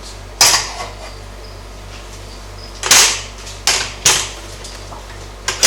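Five sharp knocks and snaps of snake-handling gear, a hook and plastic bin, the loudest about three seconds in.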